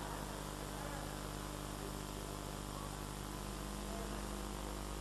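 Steady electrical hum with an even hiss underneath.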